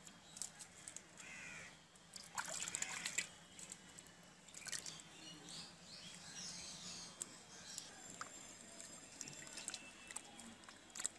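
Water sloshing and dripping in a steel bowl as hands rub and wash a whole raw hilsa fish, with crows cawing a few times in the background, loudest a couple of seconds in.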